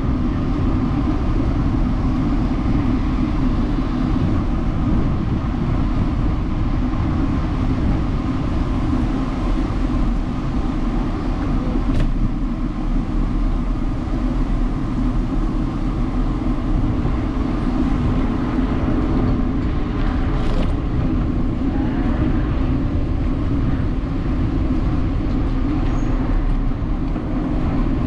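A steady, loud low rumble with no pauses, with one sharp click about twelve seconds in.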